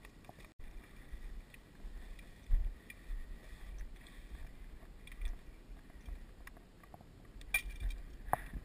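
Uneven low rumble of wind on the microphone and footsteps through dry grass, with a louder thump about two and a half seconds in. Near the end come a few sharp clicks and then one much louder, sharp click.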